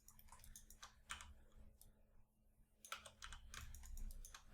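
Faint clicking from a computer keyboard and mouse in use: scattered clicks at first, then a quicker run in the second half.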